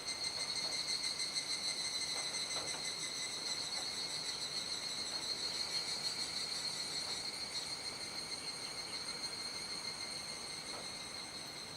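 Evening chorus of cicadas: a steady, high-pitched shrill drone that eases slightly toward the end as the dusk chorus begins to die down.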